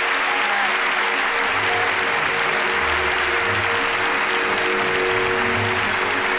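A large audience applauding steadily, with music playing under it: held notes throughout, and a bass line coming in about a second and a half in.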